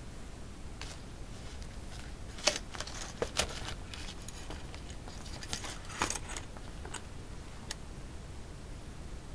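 Stiff die-cut cardstock fold-out pages of a ring-bound scrapbook journal being unfolded and pressed flat by hand: rustling paper with a series of crisp clicks and taps, the loudest about two and a half seconds in.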